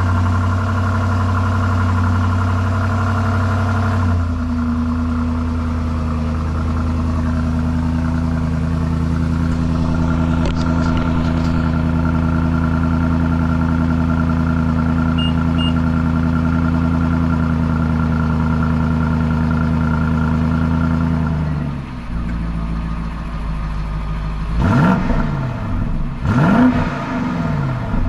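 2020 BMW X5 M50i's twin-turbo 4.4-litre V8 exhaust holding a steady, raised fast idle after a cold start. Its note changes a few seconds in and drops lower and quieter near the end, followed by several quick throttle revs.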